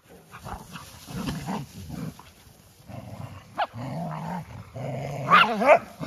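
Dogs play-fighting: low growling through the middle, a short sharp yelp a little past halfway, and loud high-pitched yips and whines near the end.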